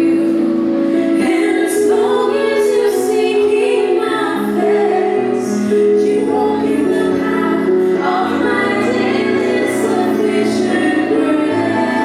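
A vocal group singing a gospel worship song in harmony, several voices holding and changing notes together.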